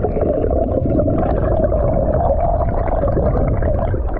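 Flowing stream water heard with the microphone under the surface: a loud, steady, muffled rushing and churning, dull and without any high end.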